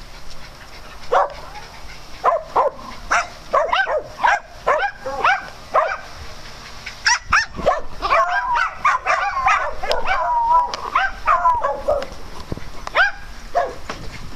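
Small dogs barking: single barks every second or so at first, then many barks overlapping from about halfway through as several dogs bark at once.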